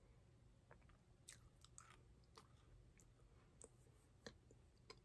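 Faint chewing of a Pop Tart bite: soft, scattered mouth clicks and crunches, a few slightly louder about a second in and near four seconds in.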